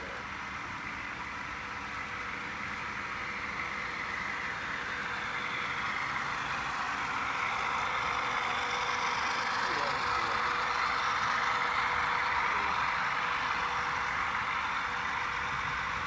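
HO scale model freight train with five locomotives running along the track, a steady rolling hiss with a faint motor hum that grows louder to a peak about two-thirds of the way through, then eases slightly.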